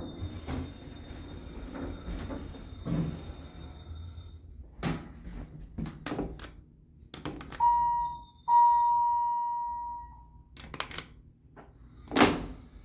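Elevator car running through its stop with doors sliding and knocking. A ding chime sounds twice, the first briefly and the second ringing out for about two seconds. Near the end a sharp latch click comes from the car's emergency-phone cabinet door being opened. A faint high whine stops about four seconds in.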